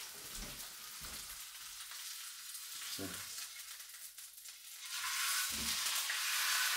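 Hot frying pan sizzling, turning suddenly louder about five seconds in as rump steak goes into the pan. A few soft knocks come before it.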